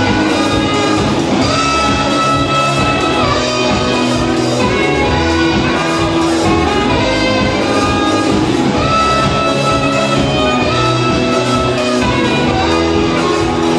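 Live rock band playing: saxophone over electric guitars and drums, with held sax notes.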